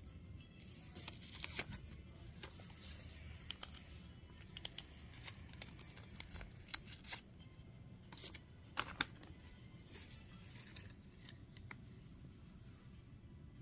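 Paper being handled and folded: irregular crisp rustles and clicks, the sharpest a quick pair about nine seconds in.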